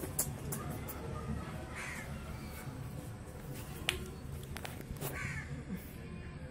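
A crow cawing twice, about two seconds and five seconds in, with a few sharp clicks over a steady low background rumble.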